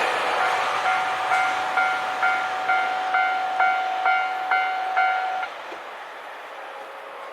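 Railway level-crossing alarm ringing at a little over two strikes a second while the noise of the just-passed KiHa 261 series diesel express fades. The alarm stops suddenly about five and a half seconds in, as the crossing clears behind the train.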